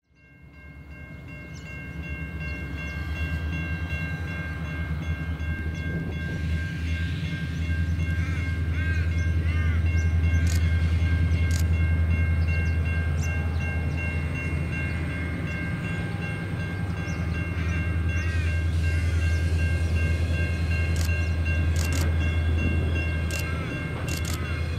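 Diesel locomotives of a loaded grain train (GWA FQ and ALF class units) approaching, their engines giving a steady low drone that fades in over the first couple of seconds. A steady high whine and small chirps sit above the drone.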